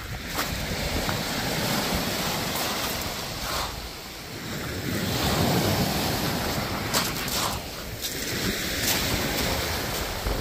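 Small waves breaking and washing up over a shingle beach, swelling and easing in about three surges.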